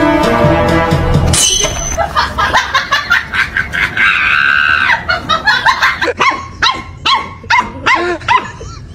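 Music stops abruptly about a second and a half in. A high-pitched cry is held for about a second near the middle, then a puppy yaps in short, high-pitched yips, two or three a second.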